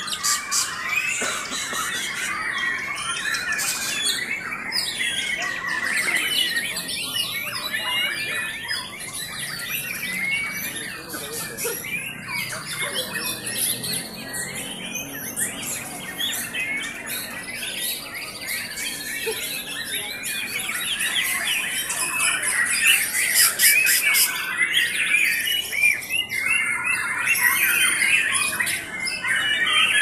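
Many caged white-rumped shamas singing against each other at once: a dense, unbroken tangle of quick whistled and chattering phrases. It grows louder and busier in the last third.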